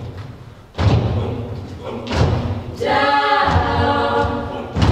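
Co-ed a cappella group singing in close harmony over a heavy thumping beat, the thumps landing about every one and a half seconds, with a full held chord about three seconds in.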